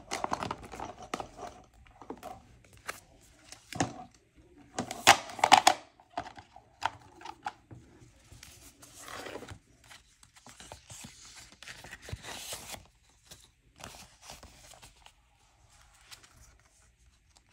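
Paper money and cash envelopes rustling and crinkling as bills are pulled out and counted by hand. Short, uneven rustles and flicks, with louder handling about one and five seconds in.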